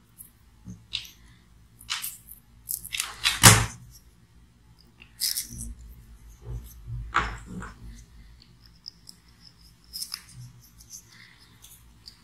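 Intermittent rustles, clicks and taps of electrical cable being handled and worked on a wooden tabletop, the wire being prepared for stripping; the loudest click comes about three and a half seconds in.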